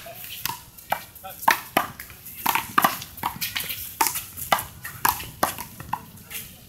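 A small rubber handball smacking repeatedly, off gloved hands, the wall and the pavement: a string of sharp, irregular hits, about two a second.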